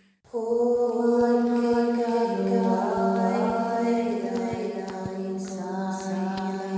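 Wordless light-language vocal toning: long, held chanted notes layered over a steady drone. The voice comes in about a third of a second in, after a brief silence, and settles to a lower note about two seconds in.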